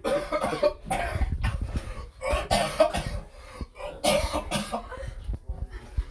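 A man coughing over and over with his head down in a toilet bowl, a run of separate coughs with short gaps, from the burn of the Scorpion pepper hot sauce he has just drunk.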